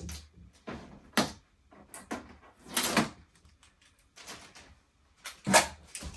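Hard plastic knocks and clunks from the water tank of a dehumidifier being worked in and out of its housing. There are several separate knocks, and the loudest comes about five and a half seconds in.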